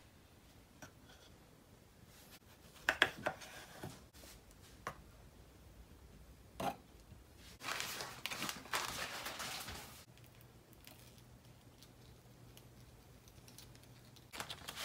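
Small handling sounds: a few light knocks and clicks of chopsticks and bread against a wooden pressed-sushi frame, then about two seconds of plastic crinkling and tearing as a single-serve jam packet is opened.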